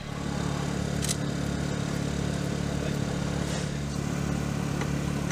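An engine running steadily at idle, a low, even hum that does not change.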